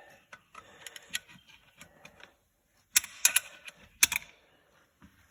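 Metal hand tools and transmission parts clicking and clinking as they are handled, with a few sharp metallic clacks about three and four seconds in.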